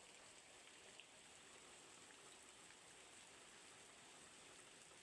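Rain, very faint: a soft, even hiss with a few light ticks of drops.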